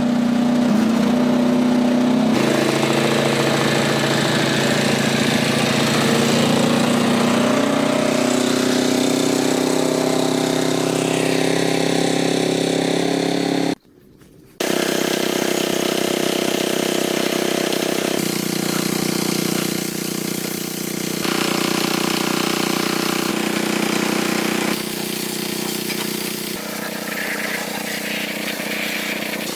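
A motor running steadily with a humming pitch, in several edited stretches whose pitch shifts at each cut, with a brief silent gap about halfway through.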